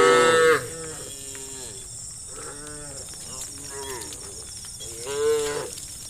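Several cows mooing: a loud moo dies away in the first half-second, a few fainter calls follow, and another moo rises and falls about five seconds in.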